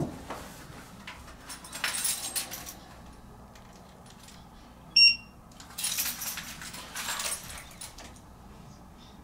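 Two spells of light metallic jangling and clatter, and a single short high-pitched beep about five seconds in, the loudest sound.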